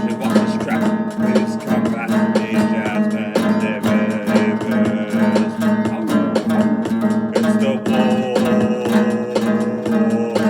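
Acoustic guitar music: a fast plucked and strummed pattern over a steady low bass note.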